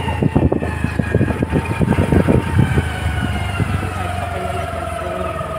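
Motorbike engine running while riding along, its pitch slowly falling as it eases off, with wind buffeting the microphone in the first half.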